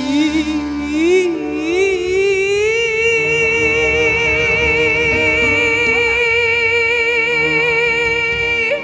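A woman singing into a microphone over backing music: her voice climbs over the first couple of seconds, then holds one long high note with strong vibrato that breaks off just before the end.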